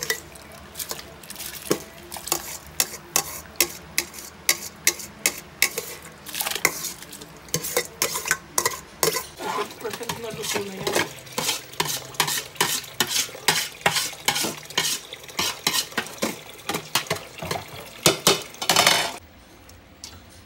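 A metal spoon scraping and knocking against a perforated metal strainer as drained basmati rice is scooped out into a pot, in a steady run of clinks and scrapes about two or three a second that stops near the end.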